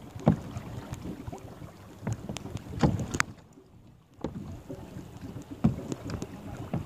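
Choppy sea water slapping and splashing against plastic sit-on-top kayak hulls in irregular knocks, with wind buffeting the microphone. There is a brief lull just past the middle.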